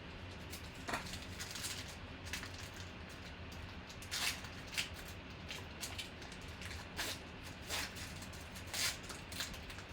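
Football trading cards being handled: irregular soft scrapes and clicks as cards slide against each other, over a low steady hum.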